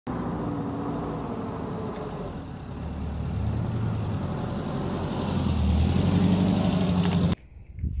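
Suzuki Jimny LJ80's 797 cc four-cylinder engine running as the vehicle drives up and over, growing louder in the second half, then cutting off suddenly.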